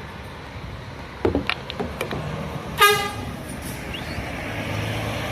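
A vehicle horn gives one short toot about three seconds in, the loudest sound here, over the steady low running of bus engines. A few sharp knocks come about a second before it, and the engine hum grows stronger near the end.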